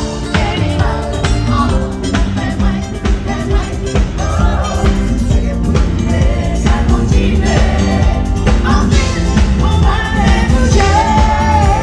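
A live band playing, with drums, bass, guitar and keyboard under a woman singing lead into a microphone. It is loud and steady, with a strong beat and the sung melody riding on top.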